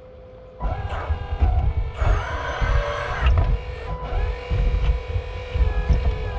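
Hydraulic pump and motor of a 1/8 scale RC excavator whining, the pitch shifting as it works under load, over uneven low rumbling and thumps. The sound starts about half a second in.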